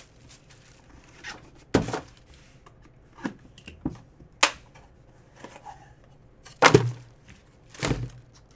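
Utility knife cutting open a sealed cardboard trading-card box, with scattered knocks, scrapes and clicks as the box is handled. The loudest is a pair of thuds about two-thirds of the way in.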